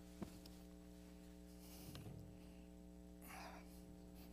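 Near silence: room tone with a steady low hum, a faint click just after the start and a soft rustle about three seconds in.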